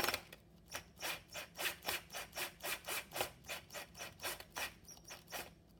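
A screw being turned by hand into a 3D-printed plastic part: a regular rasping scrape, about four strokes a second, one with each twist of the screwdriver.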